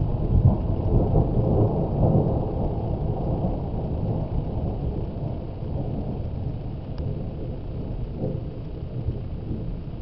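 Thunder rumbling, loudest in the first couple of seconds and then slowly dying away in a long low roll.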